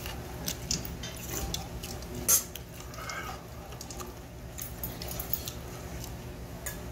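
Chewing and small mouth clicks from a mouthful of barley bibimbap, with one sharp metallic clink a little over two seconds in as a metal spoon is set down in a stainless steel bowl.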